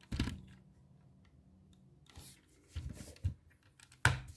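Plastic Lego bricks being handled as the engine cover of a Lego model car is fitted back on: a louder knock just after the start, then a few light clicks.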